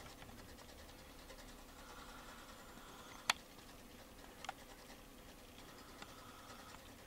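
Vintage United pot-metal electric mantel clock running quietly: a faint steady hum with light, rapid ticking. A few sharp clicks, the loudest about three seconds in, with smaller ones about four and a half and six seconds in.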